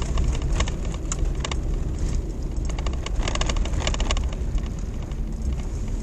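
Road noise inside a moving car's cabin: a steady low rumble with scattered clicks and knocks.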